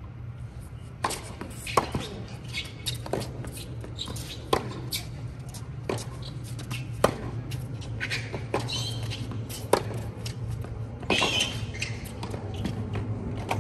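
Tennis rally: sharp pops of rackets striking the ball, along with the ball bouncing on a hard court, coming roughly every second or so and ending shortly before ten seconds in. The loudest strikes come from the near end of the court.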